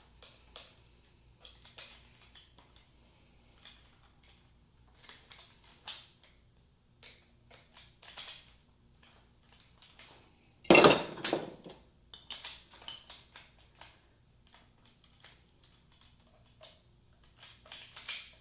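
Scattered metallic clicks and clinks of tools and small metal parts being handled on a bench, with one louder clatter about eleven seconds in.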